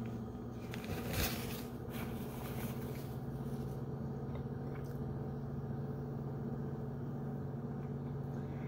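A steady low motor hum, with a few light clinks of a metal spoon against a ceramic bowl in the first two seconds.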